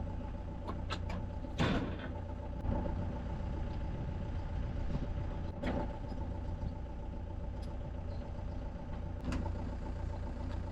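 A vehicle engine running steadily at an even speed, with a few brief clicks or knocks over it.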